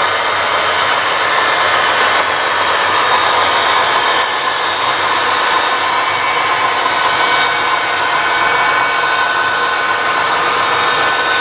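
HO scale model freight train with Union Pacific diesel locomotives running along the layout track: a steady, unbroken mechanical running noise with a high whine in it.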